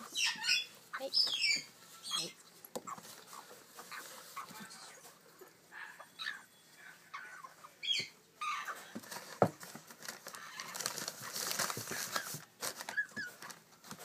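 African grey parrot chicks giving short, high chirping calls in quick clusters, in the first two seconds and again about eight seconds in. A rustling, scratchy noise follows near the end.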